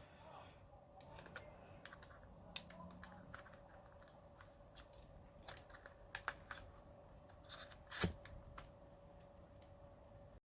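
Faint scattered clicks and taps of small parts being handled during the reassembly of a Samsung Galaxy Camera, with one louder click about eight seconds in, over a faint steady hum.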